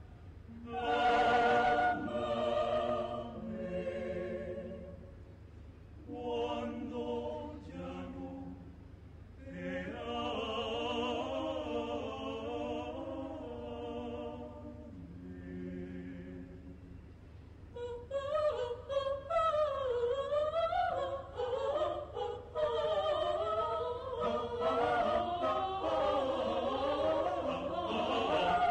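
Mixed a cappella choir singing a habanera. For about the first two-thirds, single voices, a soprano and then a tenor, carry sustained phrases with vibrato, separated by short pauses; from about two-thirds of the way through, the full choir sings in a denser, moving texture.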